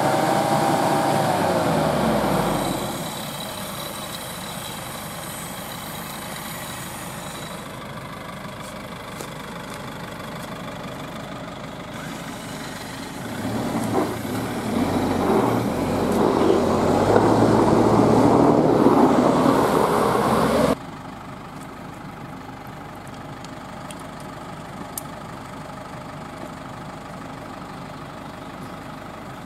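GAZ Sobol 4x4 van's engine running. Its revs drop in the first couple of seconds and it settles to a steady idle. A louder stretch in the second half stops abruptly.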